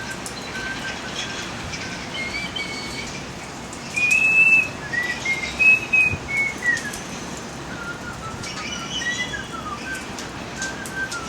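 A songbird singing clear whistled phrases that slide up and down in pitch, loudest in a run of phrases about four to seven seconds in, over a steady background hiss with faint clicks from the wood fire.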